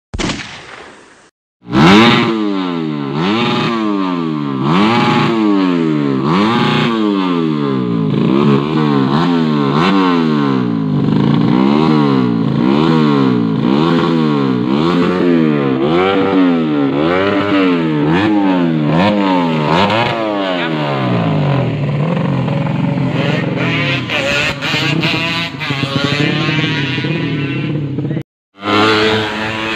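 Tuned Yamaha Jupiter 130cc four-stroke motorcycle engine revved up and down over and over, about once a second, loud throughout. A short burst comes near the start, and the sound cuts off sharply near the end.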